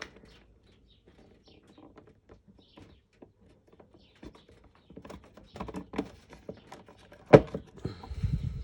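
Stiff electrical wires and plastic push-in connectors being pushed and packed into a small wall box: scattered small clicks and rustling, more frequent in the second half, with one sharp knock about seven seconds in.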